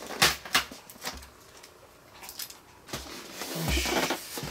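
Styrofoam shipping box being handled, with a few light knocks early on. Then, for the last second and a half, packing tape rasps as a box cutter cuts it and it is pulled off the foam lid, with one dull thump of the box.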